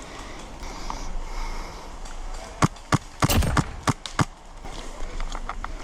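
Airsoft gun firing about half a dozen sharp shots in quick, uneven succession, starting a little past halfway through.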